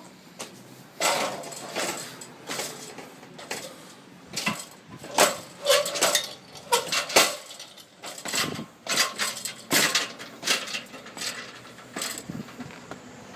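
Irregular clattering knocks, one to two a second with some quick clusters, typical of wood shingles and roofing tools being pried up and thrown down during a wood shake roof tear-off.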